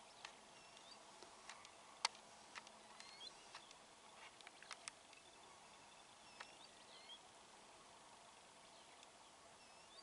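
Quiet open-air ambience with a faint hiss, a scattering of sharp clicks (the loudest about two seconds in) and a few faint, short bird chirps.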